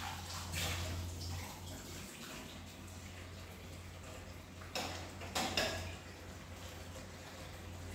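Dishwashing at a kitchen sink: water running from the tap at first, then a few sharp clatters of dishware about five seconds in, over a steady low hum.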